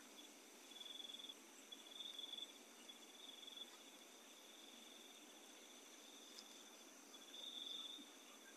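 Faint cricket trills: a high, finely pulsed chirring that comes in several bursts of about a second each, over a faint steady higher whine.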